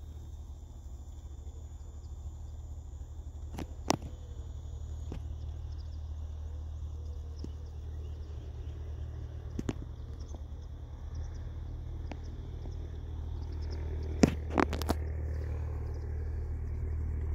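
Wind buffeting the microphone as a steady low rumble. A few sharp clicks cut through it, the loudest a short cluster about three-quarters of the way in, and a faint high steady tone runs underneath until about the same moment.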